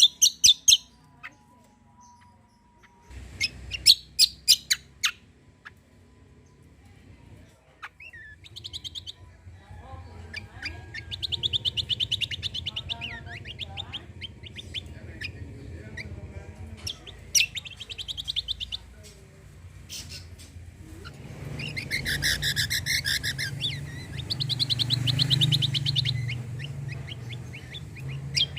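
Kecial kombo (cucak kombo) songbird singing in short phrases of rapid, high trilled notes, with fast bursts of repeated notes, over a low background hum.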